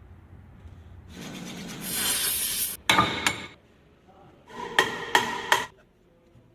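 A harsh scraping, like a file or rasp worked across metal, then sharp hammer blows on metal, each with a short ring: two about three seconds in, and three more spaced under half a second apart about a second later.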